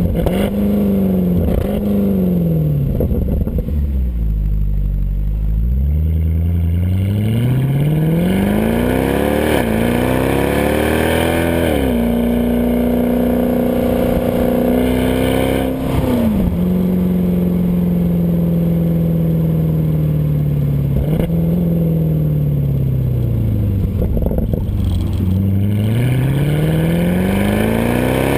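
Exhaust note of a 2012 Mercedes C63 AMG's 6.2-litre V8 on the stock exhaust, heard at the tailpipes while driving. The engine note sinks low as the car slows, climbs under acceleration and holds steady at cruise, drops in pitch at a gear change about halfway through, sinks again, and rises once more near the end.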